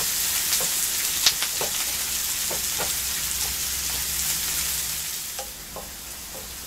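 Sliced onions sizzling in oil in a frying pan as they are caramelized, stirred with a wooden spoon that scrapes and taps the pan now and then. The sizzle turns quieter about five and a half seconds in.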